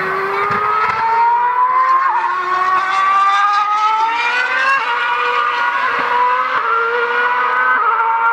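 Ferrari F138 Formula One car's V8 engine at high revs, a high screaming note that climbs steadily and drops back with each upshift, several times in a row as the car accelerates.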